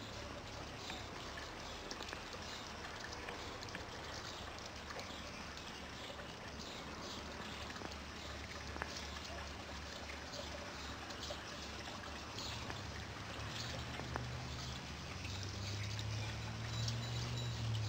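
Water trickling steadily, as from a small rockery water feature. A low rumble comes in about two-thirds of the way through and grows louder near the end.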